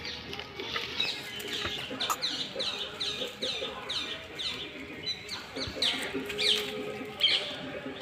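A bird calling over and over: a quick, regular series of short high chirps, each falling in pitch, about two or three a second, with a couple of louder notes near the end.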